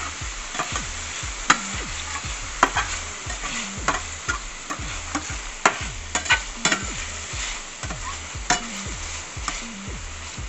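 Chicken strips sizzling in butter in a stainless steel frying pan while a metal blade stirs and scrapes them, with frequent sharp clicks of metal striking the pan. The chicken is sticking to the pan.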